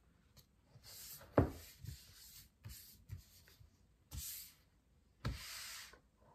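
Tarot cards slid and scraped across a desktop by hand as a spread is gathered up, in several short swishes. A sharp tap about a second and a half in is the loudest sound, with softer knocks later on.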